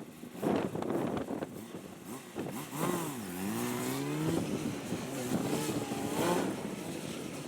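Honda CBR600RR's inline-four engine revving up and down during gymkhana riding, its pitch dipping and then climbing from about three seconds in, over gusting wind noise on the microphone.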